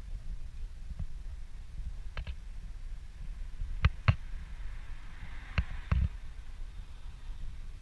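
Footsteps on tarmac, heard as a few scattered sharp taps, some of them in close pairs, over a low steady rumble on the microphone.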